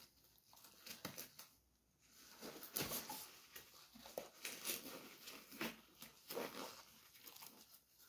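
Blue disposable gloves being pulled onto the hands: faint, irregular rubbery rustling, stretching and snapping, with the sharpest snap about three seconds in.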